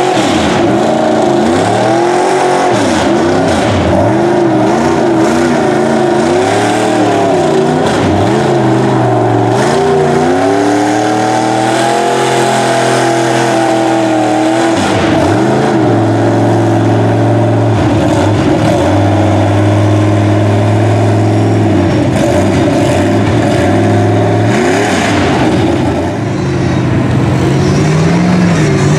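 Lifted mud truck's engine revving up and down repeatedly as the truck churns through deep muddy water on oversized tractor tires. The pitch rises and falls every second or two at first, is held steadier for a stretch, then drops briefly near the end.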